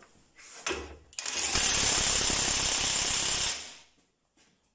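Parkside 20 V cordless 1/2-inch impact wrench hammering as it tightens a bolt: a loud, rapid rattle that starts about a second in, runs for roughly two and a half seconds and then dies away.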